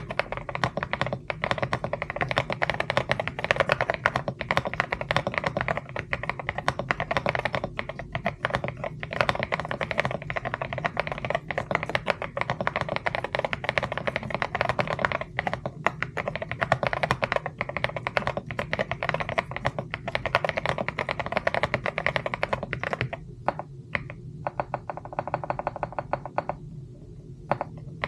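Typing on a CIDOO ABM066 Alice-layout mechanical keyboard with Akko keycaps: fast, continuous key clacks. Near the end the typing eases off into a short run of quick, evenly spaced presses.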